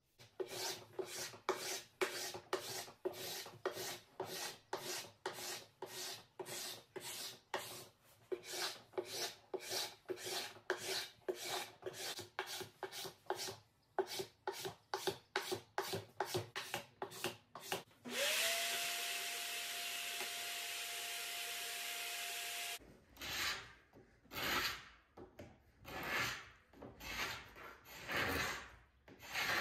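Carbide paint scraper dragged across painted wood in quick repeated strokes, about two a second, stripping layers of paint and factory varnish. Partway through, a small motor spins up and runs steadily for about four seconds before the scraping strokes resume.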